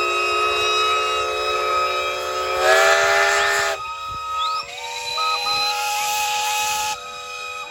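Many steam engines' whistles blowing together, several steady tones of different pitches overlapping, with bursts of steam hiss about three seconds in and again from about five to seven seconds; some whistles stop and others start around four seconds. The whistles are sounded together to mark the opening of a steam rally.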